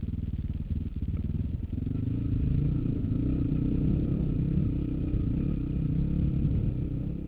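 Dirt bike engine running as it rides the rocky singletrack, getting louder about two seconds in.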